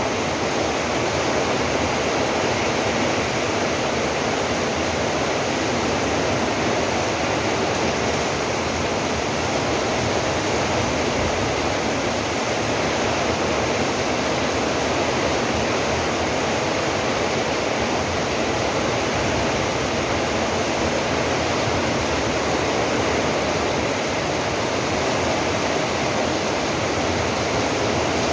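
Heavy rain pouring down in a steady, dense rush that never lets up.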